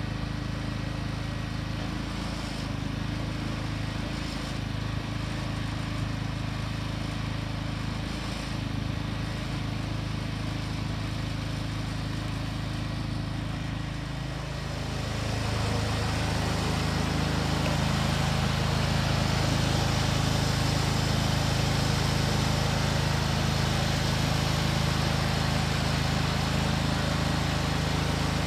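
Engine of a trailer-mounted Pump Puller hose-reel rig running steadily. About halfway through it gets louder and fuller and stays that way.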